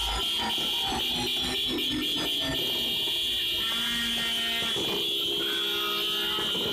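A loud, steady, high-pitched buzzing tone like an alarm. Over it, rapid crackling pops of firecrackers come in the first couple of seconds.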